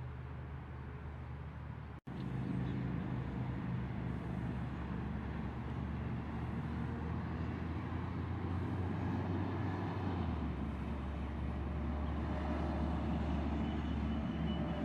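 Motor vehicle engine running with road noise, steady throughout, cut by a momentary dropout about two seconds in. The engine's low hum drops in pitch about ten seconds in.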